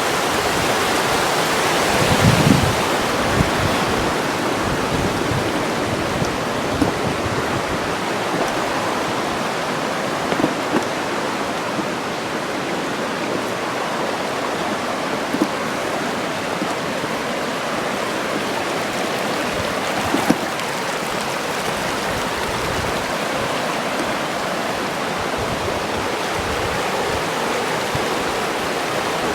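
A river's water rushing steadily, with a few brief faint knocks.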